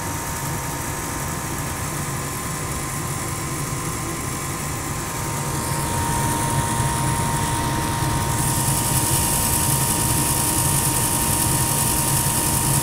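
Goodman gas furnace running: a steady motor hum with a thin steady whine. It grows a little louder about six seconds in, and a high hiss joins about eight seconds in.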